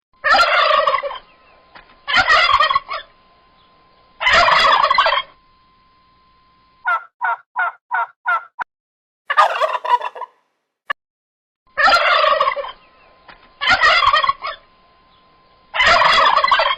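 Domestic turkey gobbling again and again: seven loud gobbles about two seconds apart, with a quick run of about six short notes in the middle.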